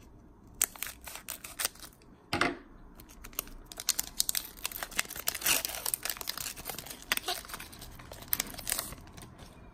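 Crinkly plastic-foil wrapping of a Pokémon card booster pack being torn open and crumpled by hand. Scattered crackles at first, a louder rip about two and a half seconds in, then dense crackling until shortly before the end.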